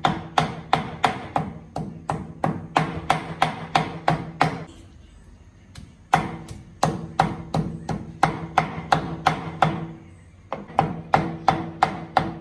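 Meat cleaver rapidly chopping pork belly into mince on a round wooden chopping board, about four strokes a second with a dull ring from the board. The chopping stops briefly twice, about a third of the way in and again near the end.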